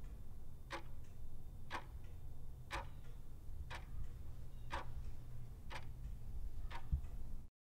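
Clock ticking quietly, about one tick a second, over a low steady hum. It stops abruptly near the end.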